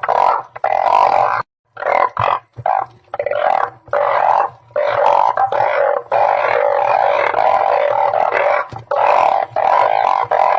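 A dense chorus of blunt-headed burrowing frogs (Glyphoglossus molossus) calling, many overlapping calls with a short lull about one and a half seconds in.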